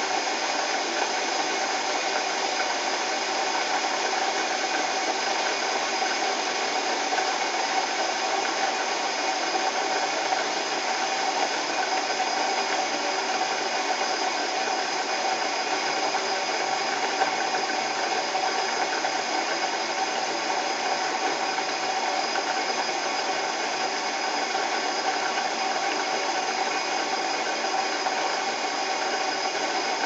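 1959 KitchenAid KD-12 dishwasher running behind its closed door: a steady pump-motor hum with water churning and spraying inside the tub.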